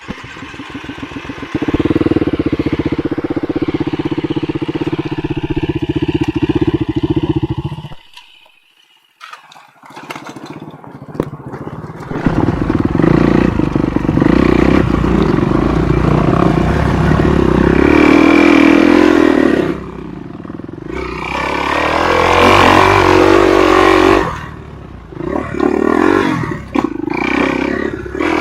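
Enduro dirt-bike engine running and revving, the revs rising and falling. It cuts out about 8 seconds in and picks up again a few seconds later.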